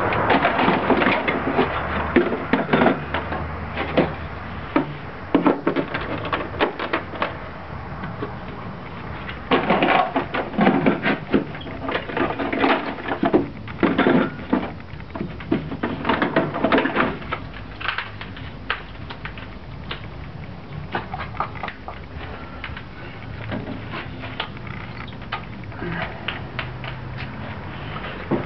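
Irregular clicks, knocks and clattering of things being handled, busiest in the first half and thinning out toward the end.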